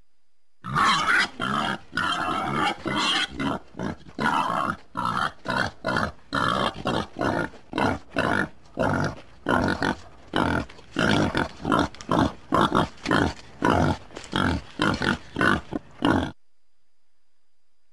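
Wild boar grunting in a long run of short, rough grunts, about two or three a second, which starts just under a second in and stops about a second and a half before the end.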